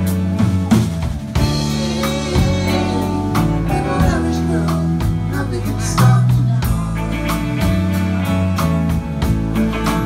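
Live rock band playing a passage without lead vocals: electric guitar over a drum kit.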